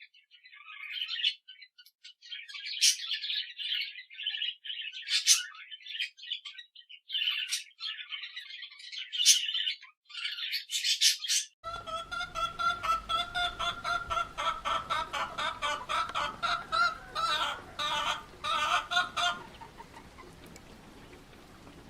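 Small birds chirping and twittering in high, quick phrases. About halfway through, a cut switches to chickens clucking in a fast, evenly repeated run of calls over a noisy farmyard background; the calls stop a couple of seconds before the end.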